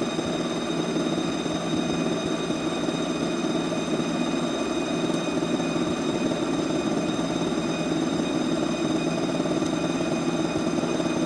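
CNC milling machine surface-machining metal, running steadily: a constant cutting rumble with a steady whine of several high tones from the spindle.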